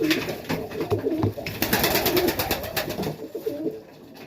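Domestic pigeons cooing in an enclosed loft, with a quick run of rapid sharp taps about halfway through.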